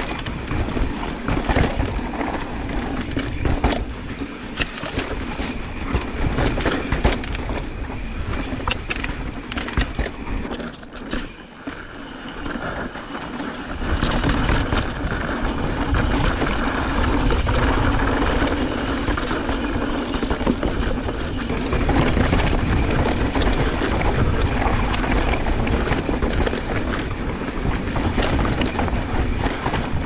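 Mountain bike descending a dry, rocky trail, heard through a handlebar-mounted camera: the tyres crunch over dirt and sandstone, and the bike knocks and rattles often. From about halfway through the noise turns denser and steadier.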